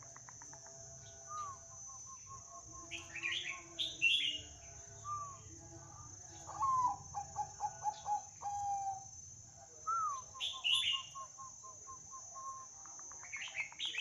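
A young bird, about eleven months old, singing repeated phrases. Each phrase is a down-slurred note followed by a quick run of short, even notes, with higher chirps in between, all over a steady high whine.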